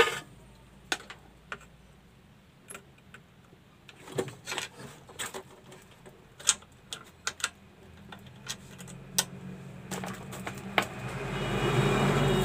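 Scattered light clicks and taps of a TV circuit board and tools being handled on a workbench. Near the end a steady hiss with a low hum rises.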